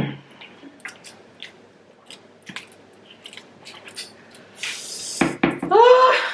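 A woman suffering from chili burn after eating very spicy prawns: a short vocal outburst, then faint wet mouth clicks and smacks, a hissed breath about four and a half seconds in, and near the end a loud wail that rises in pitch.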